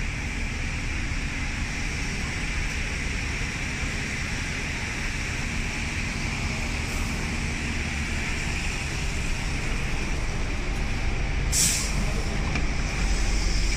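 A single-decker bus arriving at a stop, its diesel engine running over steady street traffic. Near the end there is one short, sharp hiss of compressed air from the bus as it stops and opens for boarding.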